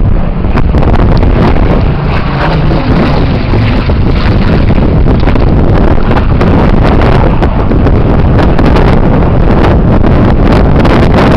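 Spitfire Mk XIX in flight, its Rolls-Royce Griffon V12 engine running, under loud, constant wind buffeting on the microphone.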